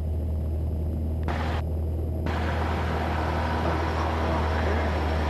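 Cessna 172's engine and propeller at takeoff power during the takeoff roll, heard inside the cabin: a steady low drone. A rushing noise grows in about two seconds in as the plane picks up speed.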